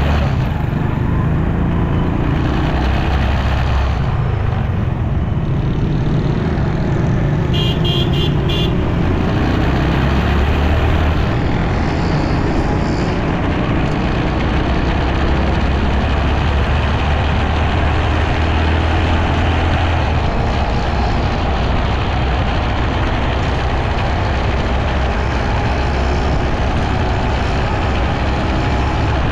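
Motorcycle ride heard from the bike: steady engine running under a constant rush of wind and road noise, with traffic around. A vehicle horn gives several quick beeps about eight seconds in.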